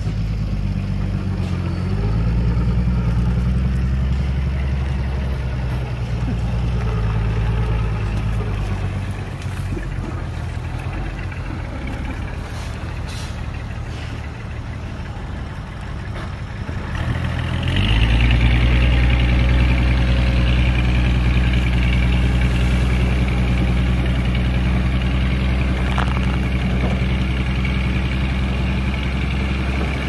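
Heavy construction machine's diesel engine running. Its load comes up about two seconds in, eases off for several seconds, then rises sharply again and holds high from about eighteen seconds in.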